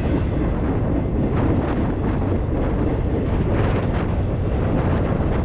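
Steady rumble of a moving freight train heard from on board, with wind buffeting the microphone.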